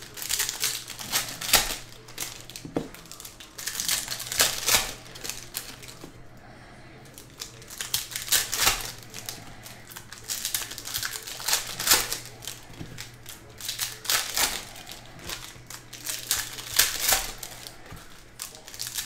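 Foil trading-card pack wrappers being torn open and crinkled, with cards handled and shuffled, in bursts of crackling every second or two over a steady low hum.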